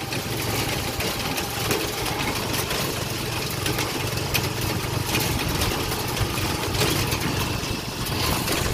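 Engine of a small open cargo vehicle running steadily on the move, with road and wind noise.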